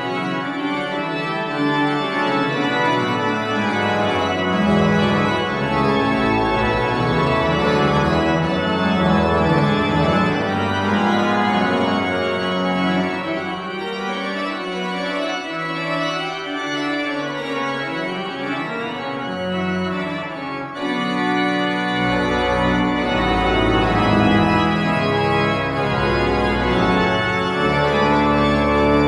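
Church pipe organ playing the closing voluntary after the benediction: full sustained chords, with deep pedal bass notes coming in about three-quarters of the way through.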